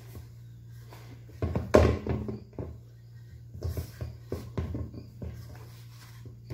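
Hands mixing and kneading bread dough in a stainless steel bowl: irregular soft thumps and knocks of dough and bowl, the loudest about a second and a half in, over a steady low hum.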